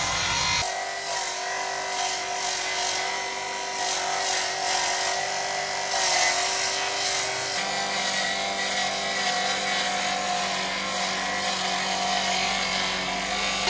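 Bench circular saw running steadily with a held whine, its spinning blade ripping a wooden board lengthwise. The tone shifts abruptly about a second in, and a lower hum joins about halfway through.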